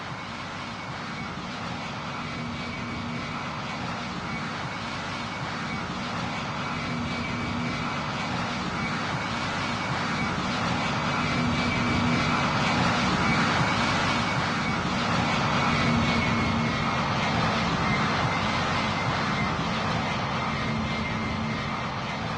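An airplane's engines running with a steady whine and a low hum, growing louder to a peak about two thirds of the way through and then easing off as the aircraft passes.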